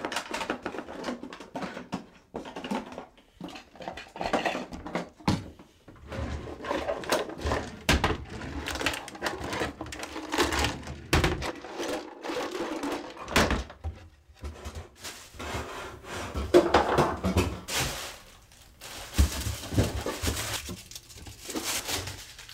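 Rummaging through cabinets and drawers: cupboard doors and a drawer opening and closing, with bottles and small objects knocking and clattering in irregular clicks and thuds.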